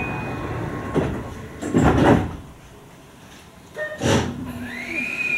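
Keio Liner electric train at a station stop: sliding doors closing with several thuds and knocks, then near the end the electric traction motors start up with a whine that rises in pitch as the train begins to pull away.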